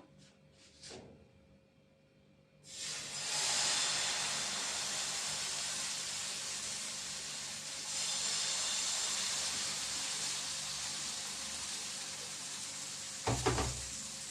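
Pancake batter hitting a hot oiled pan and sizzling, starting suddenly about three seconds in and holding steady. A short clunk of the pan near the end.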